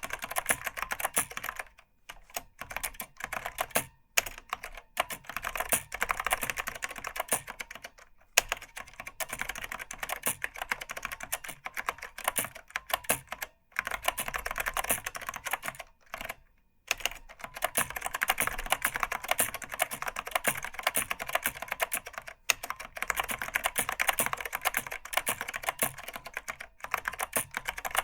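Fast, continuous typing on an Apple Extended Keyboard II with Mitsumi Standard Mechanical tactile switches and stock PBT keycaps: a dense clatter of key clicks, broken by short pauses a few times.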